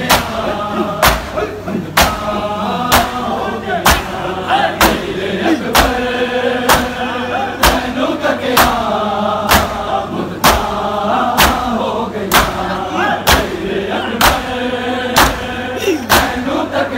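Crowd of men doing matam, striking their bare chests with open hands in unison about once a second, while male voices chant a Punjabi noha.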